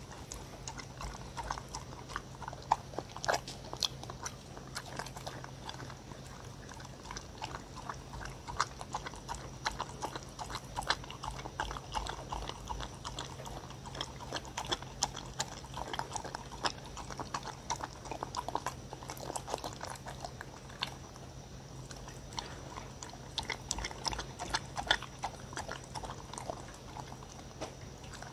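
Dog lapping up a runny blended banana and Korean melon purée from a wooden bowl: a steady stream of wet licking and slurping clicks.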